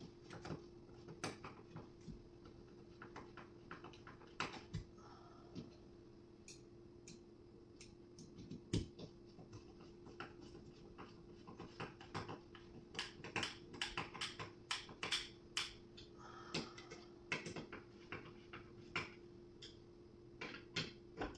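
Scattered light clicks and taps of flat-pack furniture parts and screws being handled and fitted during assembly, more frequent about two thirds of the way through, over a faint steady hum.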